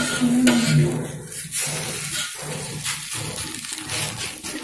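Egg omelette sizzling on a flat iron tawa over a gas flame, with a metal spoon scraping and pressing it against the pan.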